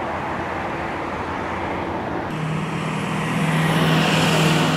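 Road traffic hum, then a pickup truck driving past close by with a steady low engine drone, loudest about four seconds in.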